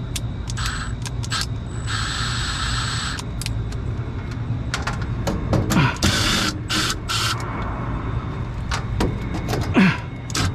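Cordless impact driver running in several short bursts, backing screws out of a rooftop HVAC unit's sheet-metal bracket, over a steady low background hum.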